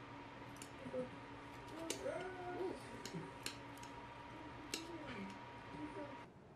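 Chopsticks clicking against a plate and the crisp lattice skirt of pan-fried gyoza as a dumpling is lifted: a handful of sharp, separate ticks over a faint steady hum. The hum cuts off suddenly near the end.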